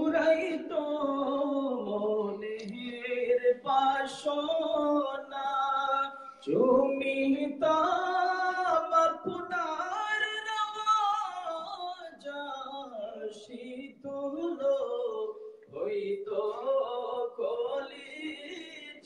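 Male voices singing an Islamic devotional naat, salawat in praise of the Prophet, in long melodic phrases with brief breaths between them.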